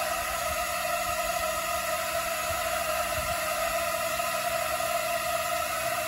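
A swarm of small quadcopter drones hovering, their many propellers making a steady whirring hum with several pitches held at once.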